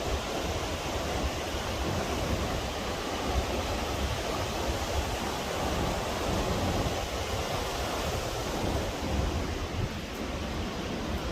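Steady rushing of fast-flowing river water, with a low fluttering rumble of wind on the microphone.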